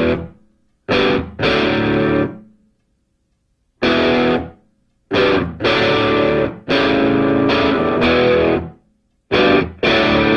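Distorted electric guitar playing a heavy stop-start riff: chords of half a second to two seconds, each cut off suddenly into silence before the next.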